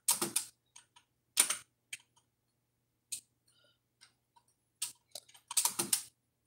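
Typing on a computer keyboard: short clusters of keystrokes with pauses and single taps between them, and a denser run near the end.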